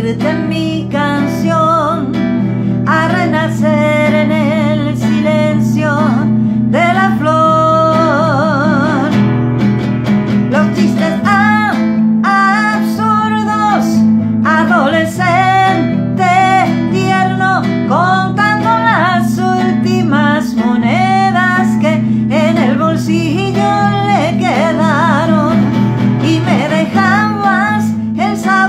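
A woman singing a ballad while accompanying herself on acoustic guitar. Partway through she holds a long note with vibrato.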